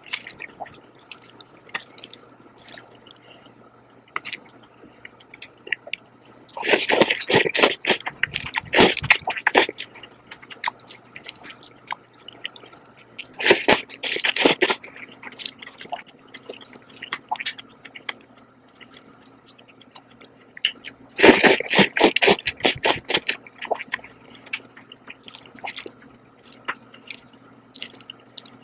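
Wet, close-up slurping and chewing of black-bean-sauce noodles. Three loud bursts of slurping come about a quarter, half and three quarters of the way through, with quieter chewing between.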